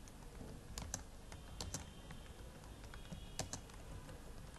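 Computer keyboard being typed on: faint, irregular key clicks with a few louder keystrokes, typing out a line of code.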